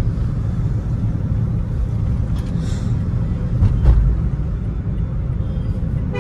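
Steady low road-and-engine rumble heard from inside a moving car's cabin, with a brief heavier thump about four seconds in.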